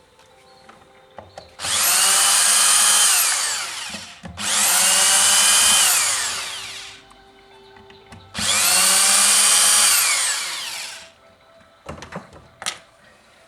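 Cordless drill-driver run in three bursts of about two seconds, each spinning up, holding speed and winding down, backing out screws on a chainsaw's housing. A few light clicks follow near the end.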